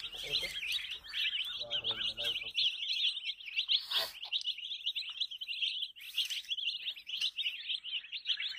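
A group of baby chicken chicks peeping without pause, many high, short chirps overlapping. A single sharp tap about four seconds in.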